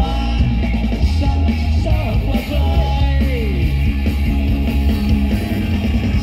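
Live rock band playing loudly through a PA, with electric guitar and bass guitar over a heavy low end.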